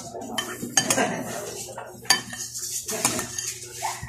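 Metal spoon and fork clinking and scraping against a ceramic plate during a meal, with several sharp clinks about a second apart.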